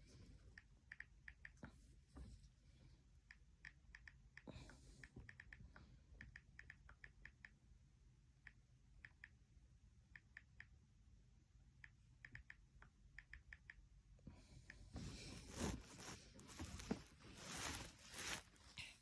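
Faint quick clicks in small clusters, like typing on a keyboard, then louder irregular rustling from about three-quarters of the way in.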